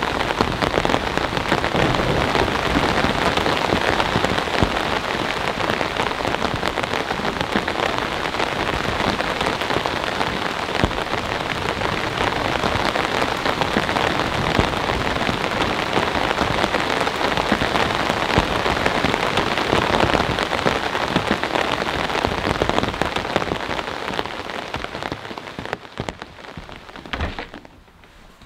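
Steady rain falling on wet ground and puddles, fading away over the last few seconds.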